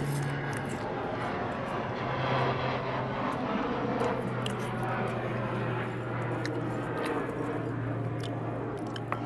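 An airplane passing overhead: a steady rumble with a low drone, swelling slightly a few seconds in. Short clicks of chewing fries sit over it.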